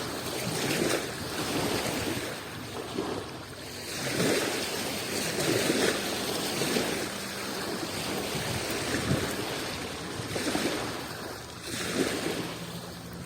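Adriatic Sea waves washing in, surging and ebbing every second or two, with some wind noise on the microphone.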